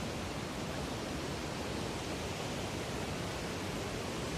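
Steady rush of water from Vernal Fall on the Merced River.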